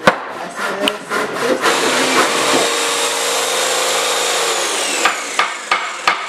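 A woodworking power tool cutting wood, with a steady noise for about three seconds before it winds down with a falling whine. Sharp knocks on wood are heard just before it starts and again after it stops.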